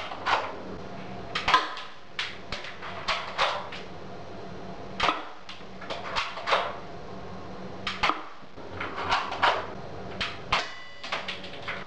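CYMA P.815 spring-powered airsoft M11 being cocked and fired over and over, making a string of sharp plastic clacks and snaps spaced irregularly, a second or so apart, some in quick pairs.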